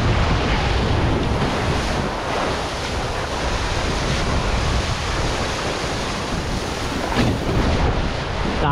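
Wind buffeting the microphone over the steady rush of water along the hulls of an Extreme 40 racing catamaran under sail, with a couple of brief splashes near the end.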